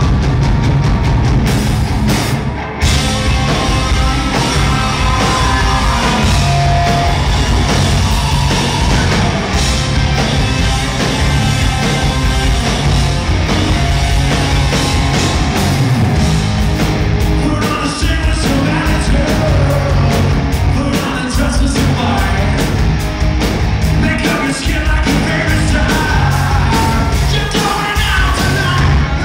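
Live rock band playing loudly: electric guitar and drums under a male lead vocal.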